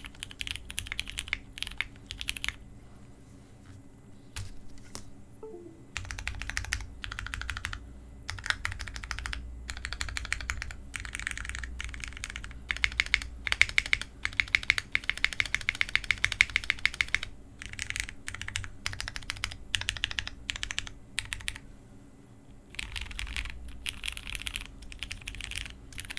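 Typing on a custom 60% mechanical keyboard fitted with lubed, filmed and spring-swapped Hyperglide Brown tactile switches on a polycarbonate plate, under GMK keycaps. The keystrokes come in fast runs broken by a few short pauses, with a stretch of spacebar presses near the middle.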